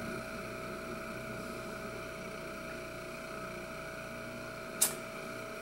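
Large wooden spinning top of about 4.5 pounds spinning steadily on its point in a wooden dish: a steady, even hum, with one short click about five seconds in.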